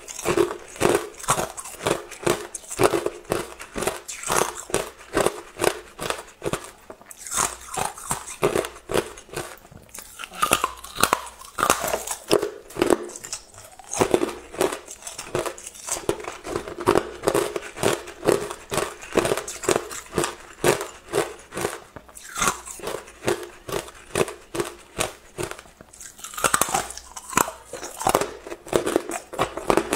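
A person chewing hard, clear ice: a continuous run of sharp, brittle crunches, several a second.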